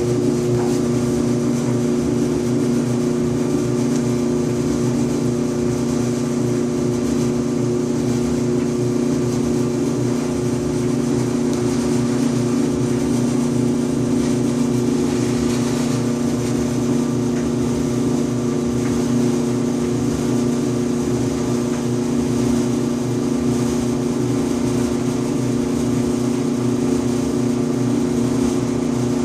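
Electrolux EIED55H electric clothes dryer running with a loud, steady buzzing hum and vibration. The owner traced the fault to a failing blower assembly.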